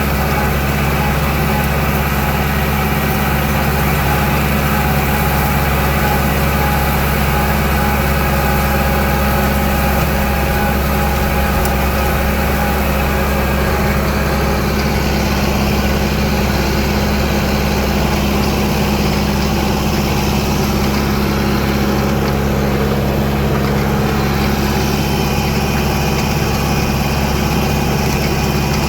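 Tractor engine running steadily while it drives a McHale center-delivery rotary rake through the field, a constant heavy drone with no changes in speed.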